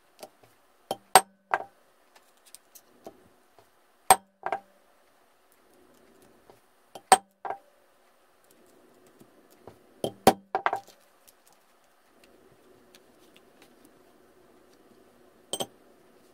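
Sharp metal-on-metal strikes on a snap-setting punch, setting spring snap fasteners into a leather card case. They come in four groups of two or three blows about three seconds apart, with a single clack near the end and quiet handling noise between.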